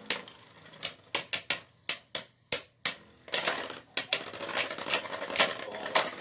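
3D-printed Beyblade spinning tops battling in a stadium: a rapid, irregular run of sharp plastic clacks as they strike each other and the stadium wall, with a scraping rasp in between.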